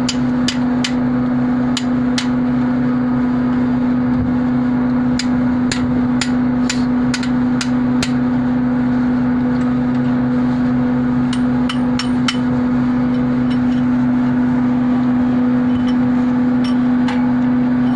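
Loud, steady machine hum on one low note, with irregular sharp metal clicks and taps in clusters over it. The clicks come from hand tools and metal parts on the bolted casing of a screw compressor being dismantled.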